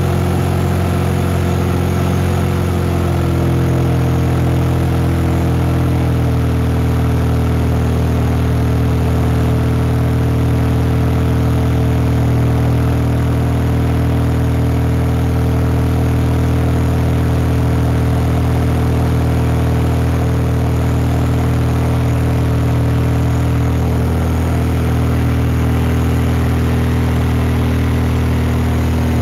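Superior XP-360 four-cylinder air-cooled aircraft engine and propeller of an RV-7A droning steadily at climb power, heard inside the cockpit, its tone shifting slightly a few seconds in.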